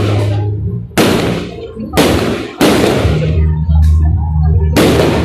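Fireworks going off: four loud, sharp bangs, each trailing off quickly, with music playing underneath.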